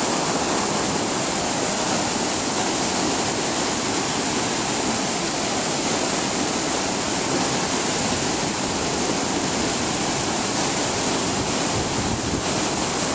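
Whitewater pouring over a river's small waterfalls and a sloped concrete weir, a steady rushing noise.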